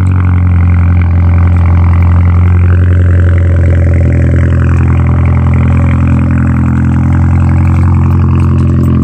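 Muffler-deleted exhaust of a 2017 Volkswagen Jetta's 1.8 TSI turbocharged four-cylinder, idling just after start-up, heard at the tailpipe. A loud, steady, deep drone.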